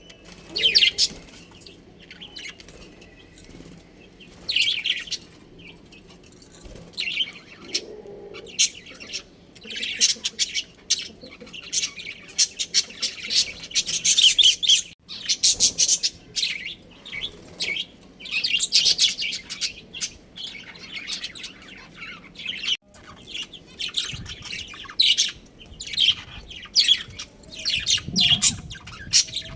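Budgerigars chirping and chattering: rapid high chirps in bursts that come and go, with short pauses between.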